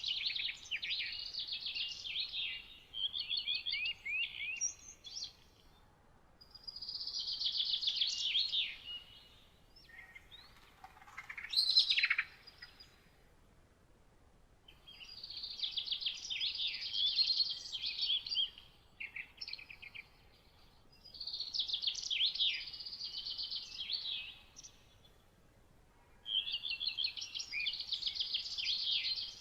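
A songbird singing short, fast trilled phrases of two to three seconds, repeated every few seconds with short pauses between them. A louder, falling sweep of a call comes about eleven seconds in.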